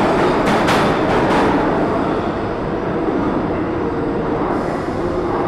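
New York City subway train rumbling along the platform, with a few sharp rail clicks in the first second and a half; after that the high hiss fades and the rumble eases a little.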